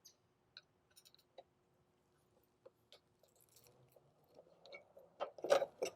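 Scattered light clicks and knocks of a screwdriver or pry bar working the roll screen's motor out of its retaining clip, turning into a louder run of knocks and scraping near the end as the motor and roll tube come free.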